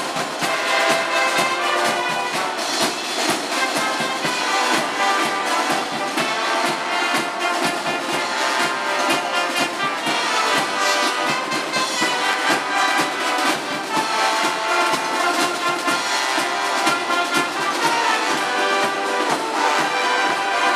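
A brass band of cornets, euphoniums and tubas playing a tune live, with no pause.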